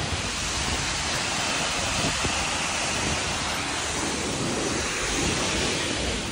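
Waterfall's falling water rushing in a steady, even hiss.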